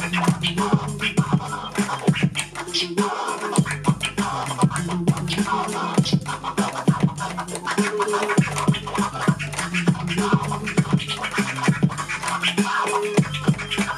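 A DJ scratching a vinyl record on a turntable: a hand pushes the record back and forth while the mixer's fader chops the sound in and out, over a repeating hip hop beat. It is picked up by the camera's built-in microphone.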